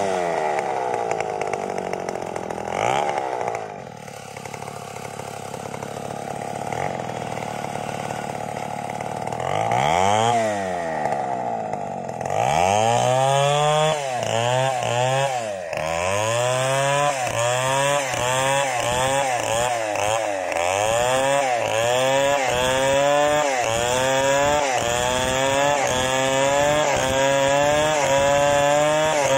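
Large two-stroke chainsaw, a home-assembled saw similar to a Stihl 070, ripping a log lengthwise into planks. It runs quieter for several seconds and is revved up and back down once about a third of the way in. From about halfway it cuts steadily under load, its pitch rising and falling roughly once a second as the bar works through the wood.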